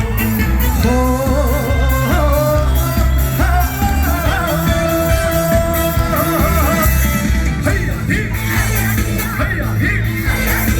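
Live trot band music with a steady beat and singing over it.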